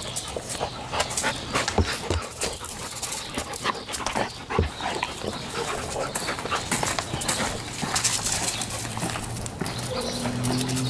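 Two dogs play-wrestling up close, with dog panting and play sounds over a steady run of scuffs and crunches from paws on gravel.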